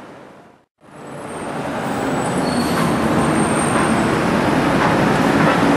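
Busy city street traffic: a steady wash of vehicle noise. It fades out and drops to silence for a moment under a second in, then rises back in.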